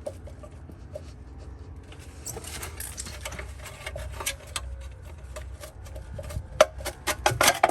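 Plastic center core of a cartridge pool filter being wiggled and pulled loose: irregular scraping and clicking of plastic on plastic, busier from about two seconds in, with louder clicks near the end.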